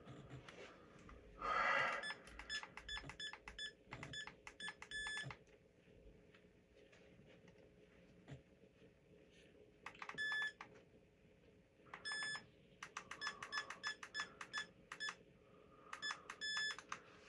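Short electronic beeps, all at one pitch, sounding in quick irregular runs and clusters with pauses between, from RC electronics being tested on the bench. A brief rustle comes about a second and a half in and is the loudest sound.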